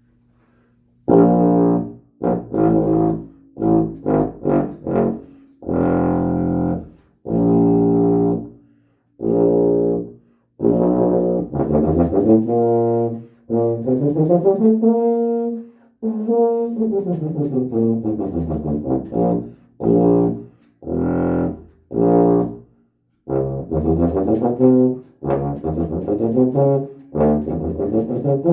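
Restored vintage H.N. White King lacquered-brass sousaphone being play-tested: a string of separate notes starting about a second in, then a connected run that climbs and falls back down around the middle, followed by more separate notes.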